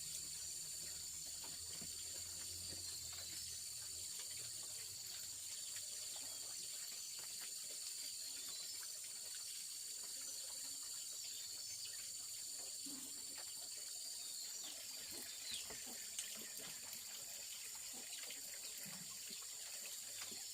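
Steady high-pitched insect chorus over a low background hiss, with a few faint knocks about two-thirds of the way through.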